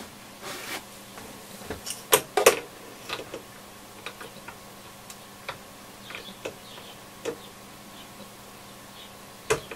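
Scattered small clicks and scrapes of hands working at the retaining nut on the band selector switch shaft of a Yaesu FRG-7700 receiver. There are a few sharper clicks about two seconds in and near the end, over a faint steady hum.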